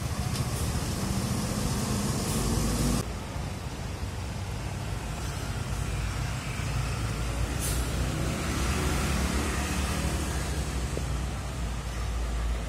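Diesel coach buses pulling out into traffic with engines running low and rising as they move off, and motorcycles and cars passing close by. A short air-brake hiss comes about two thirds of the way through.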